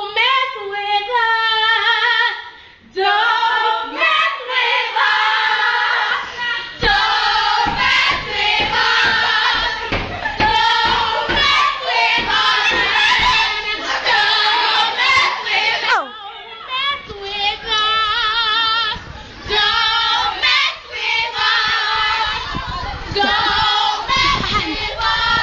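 Several voices singing together, loud and nearly unbroken, with wavering high notes.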